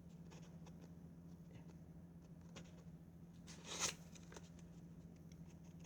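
Faint handling of a package being opened: small taps and rustles, with one louder rustle a little before four seconds in.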